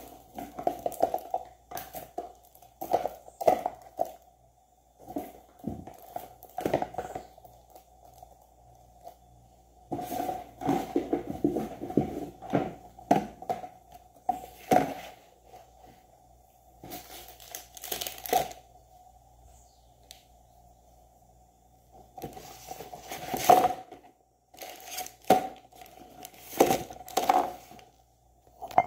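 Plastic wrapping crinkling and a cardboard box rustling as boxed products are lifted out and set down, in irregular bursts with pauses and a few light knocks.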